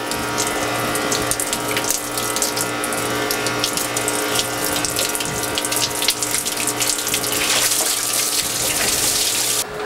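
Residual seawater-flush water pouring and splashing out of a disconnected raw-water suction hose into a boat's bilge, a steady running-water sound that stops suddenly near the end.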